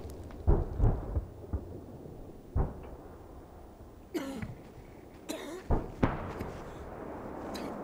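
Several heavy low thuds, the loudest about half a second in, in the aftermath of a shell burst, and a man coughing harshly twice a few seconds later.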